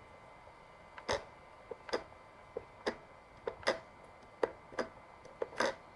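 Light plastic clicks from the joysticks of a Yuneec ST16 remote controller being worked back and forth after a spray of contact cleaner, which is meant to cure their sluggish return to centre. The clicks start about a second in and come in quick pairs, roughly one pair a second, over a faint steady hum.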